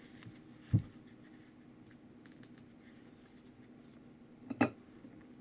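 Craft materials being handled on a tabletop: a dull thump about a second in and a sharper knock near the end, over a faint steady hum.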